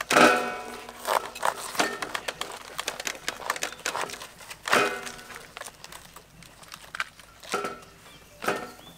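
Kitchen knives cutting through raw cabbage heads on wooden chopping boards: repeated crisp cuts and leaves cracking apart. A few short pitched tones rise over the cutting, the loudest right at the start and another about five seconds in.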